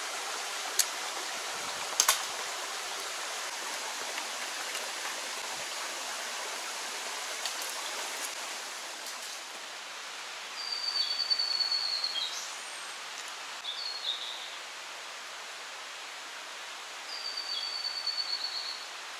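Steady rush of a shallow mountain stream running over rocks, easing off a little about halfway through, with a couple of sharp knocks in the first two seconds. Later a small bird sings twice, about six seconds apart: a high thin note breaking into a fast trill.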